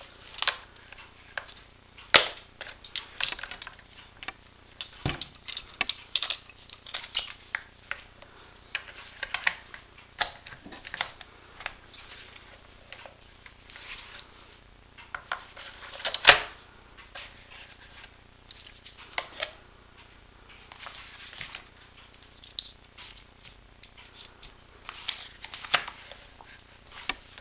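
Handling noise from a plastic soldering station and its cables: irregular clicks, taps and rustles as parts are picked up, turned over and set down, with a few sharper knocks, the loudest about 16 seconds in.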